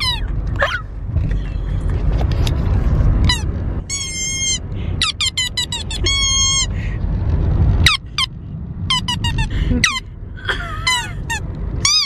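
Rubber squeaky toy ice cream cone squeezed over and over, giving short high squeaks with a wavering pitch, some held for about half a second. A steady low car road rumble runs underneath.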